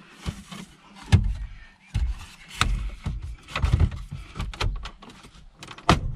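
Ford 6000CD car radio head unit's metal case sliding into its dashboard slot, scraping, with several sharp clicks and knocks as it is pushed home, the loudest about a second in and another near the end.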